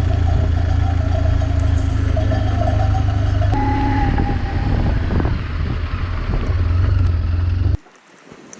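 BMW R1200GS boxer-twin motorcycle engine running with a steady low drone. Its pitch steps up about a third of the way through, and the sound stops abruptly near the end.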